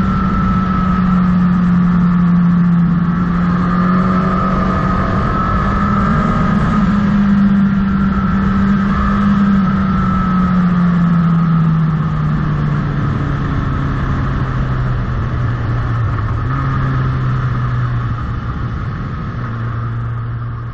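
Motorcycle engine running under way, heard from the bike's own onboard camera: a steady engine note that falls gradually over the second half as the bike slows down.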